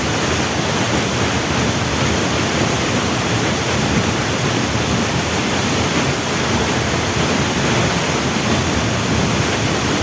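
Waterfall rushing: a steady, even noise of falling water that holds at one level throughout.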